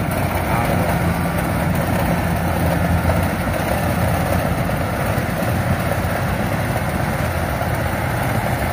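Yanmar 82 rice combine harvester running steadily while it crawls through a muddy paddy and harvests: a constant low diesel engine note under dense, even machinery noise.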